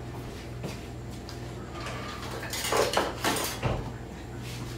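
Metal kitchen utensils clinking and clattering as tongs are fetched, with a cluster of clatter about three seconds in and a dull thump just after, over a low steady hum.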